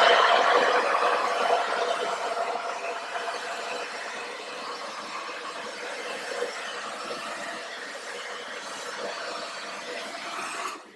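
Handheld hair dryer blowing: a steady rush of air with a faint motor whine, getting gradually quieter over the first few seconds, then cutting off just before the end.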